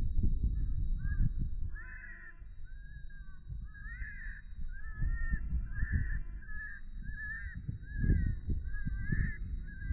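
Short, high, squalling animal calls repeating about twice a second, the call of a coyote-hunting distress sound, over wind gusting on the microphone.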